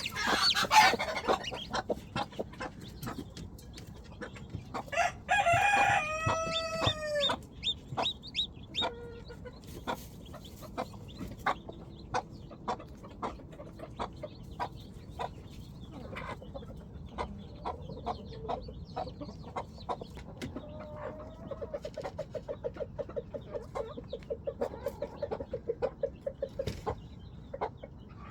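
Chickens clucking, with a rooster crowing once about five seconds in and a quick run of clucks near the end.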